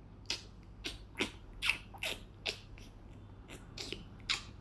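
Someone chewing crunchy raw carrot and pear close to the microphone: a string of sharp crunches, roughly two a second, with a short pause in the middle.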